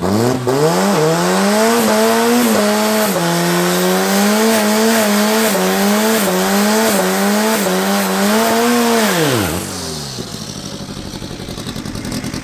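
Nissan 1400 bakkie drag car's engine held at high revs during a burnout, the revs surging up and down over the squeal of spinning rear tyres. About nine and a half seconds in, the revs drop away and the engine falls to a quieter, lower running.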